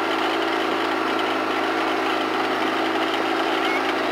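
ATV engine running steadily at an even, unchanging pitch.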